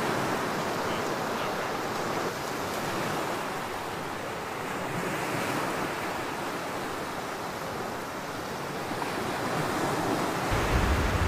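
Steady wash of surf breaking on a sandy beach, with wind. Near the end a low wind rumble starts buffeting the microphone.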